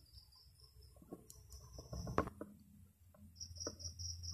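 Faint clicks and taps of a soldering iron and fingers working on a CRT television's circuit board as a resistor is desoldered, with one sharper click about two seconds in. A faint high pulsing tone and a low hum sit behind them.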